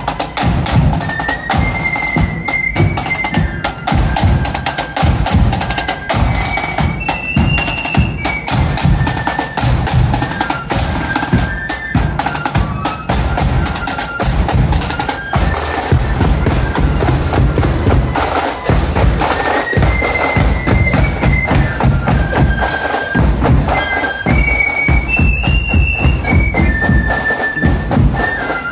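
Marching flute band playing: a high flute melody of held, stepping notes over snare drums and a bass drum beating a steady march.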